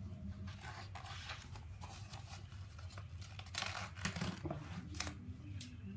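Picture-book page being turned by hand: soft paper rustles and a few light taps, mostly in the second half.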